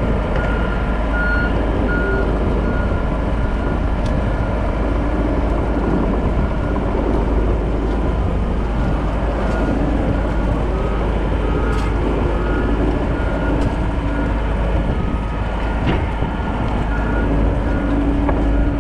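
Heavy earthmoving equipment's diesel engine running steadily under load. A backup alarm beeps in spells over it, at the start and again in the last few seconds.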